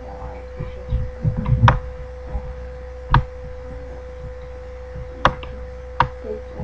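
Computer mouse clicking a few times at irregular intervals, about five clicks, with soft low thuds, over a steady electrical hum.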